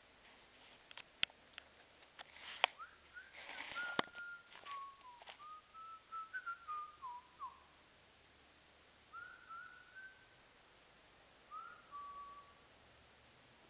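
A person whistling a tune in short phrases of single notes that slide up and down. Several sharp clicks and knocks and a brief rush of noise come in the first few seconds.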